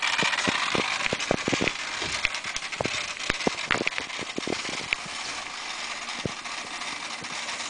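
Irregular clicks and crackles over a steady hiss from a 1992 Mitsubishi 3000GT VR-4 before its engine is started. This is the strange noise that went away once leaked capacitors in the car's ECU were replaced.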